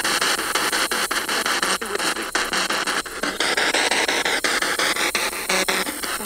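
Spirit box sweeping through radio frequencies: a loud hiss of static chopped into rapid clicks, several a second. In the second half a faint wavering tone rises and falls through it as the sweep catches a signal.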